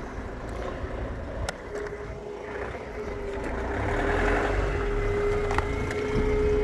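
A vehicle's engine running close by, a low rumble with a steady hum that comes in about a second and a half in and grows a little louder toward the middle.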